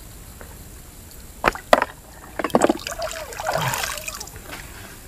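Splashing in shallow river water as a fish is let go by hand and the hands are rinsed: a few sharp splashes about a second and a half in and again a second later, then softer sloshing and dripping.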